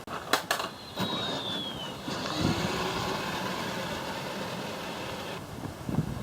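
A child's ride-on toy truck backing up. A few clicks at the start, then a short falling motor whine about a second in, and a steady rolling noise of the wheels that stops abruptly near the end.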